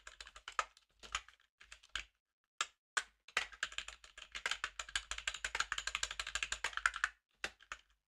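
Typing on a computer keyboard: a few scattered key presses, then a fast run of keystrokes from about three to seven seconds in, and a couple of last taps near the end.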